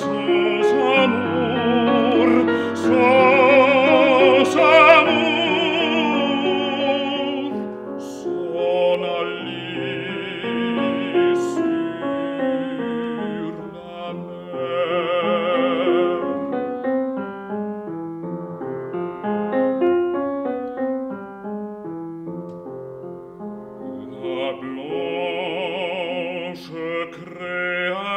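Baritone singing a classical art song with a wide vibrato, accompanied by a grand piano.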